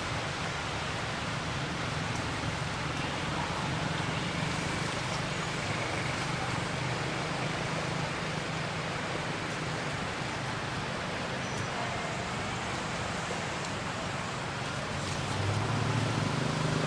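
Steady outdoor background noise: an even hiss with a low hum underneath, and no distinct calls or knocks.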